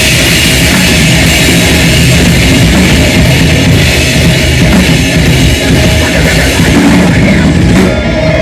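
Live heavy rock band playing loud, with electric guitars and a pounding drum kit.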